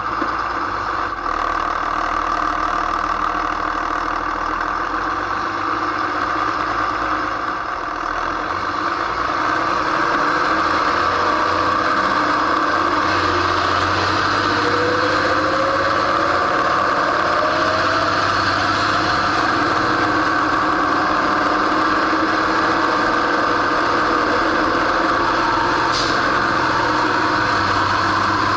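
FMTV military truck under way: a steady run of diesel engine, drivetrain and tire noise, picking up a little about eight seconds in, with a faint rising whine in the middle.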